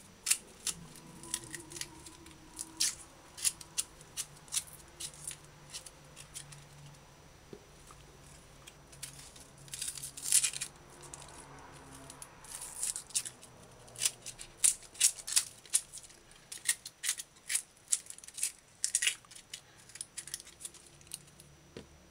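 Dry, papery onion skin crackling and tearing as it is peeled off by hand, in irregular crisp crackles that come thickest about ten seconds in and through the second half.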